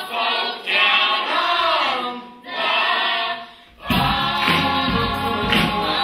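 A large cast chorus singing a stage-musical number in short phrases with brief gaps. About four seconds in, instrumental backing with a beat comes in under the voices.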